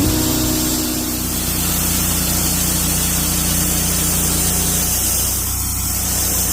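Norwood LumberMax HD38 portable band sawmill running steadily, its engine humming under a broad hiss as the band blade saws through a pine log. One part of the hum drops away about five seconds in.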